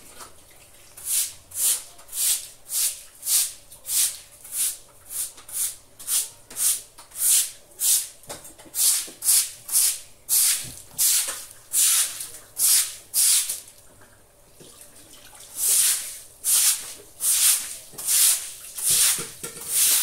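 A broom scrubbing a wet concrete floor in short, quick strokes, about two a second, with a pause of about two seconds past the middle.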